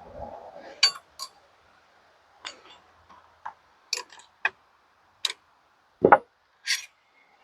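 Separate sharp clicks and metallic clinks, about a dozen, spread irregularly, from tools and metal fittings being handled and set. The loudest knock comes about six seconds in.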